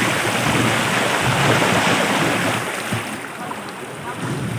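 Shallow river rushing over rocks, a steady hiss of running water that gets quieter after about three seconds.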